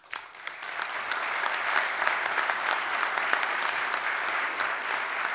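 Audience applauding: the clapping starts suddenly, builds within the first second and then holds steady.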